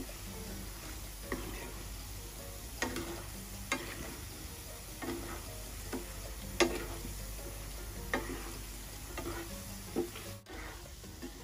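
Wooden spatula stirring cassava balls in a pan of hot oil and sugar, the sugar semi-caramelizing. A steady frying sizzle runs under irregular knocks and scrapes of the spatula against the pan, about one a second.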